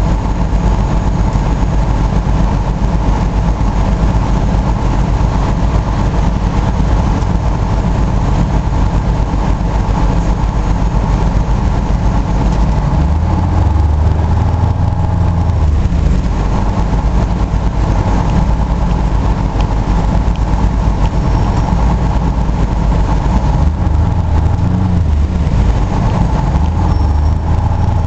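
GMC TDH-5106 transit bus's two-stroke Detroit Diesel engine idling in stop-and-go traffic, heard from inside the coach. Its low drone grows louder about halfway through and again near the end as the bus inches forward.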